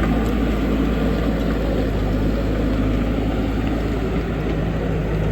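Backhoe loader's diesel engine running steadily with a low, even hum.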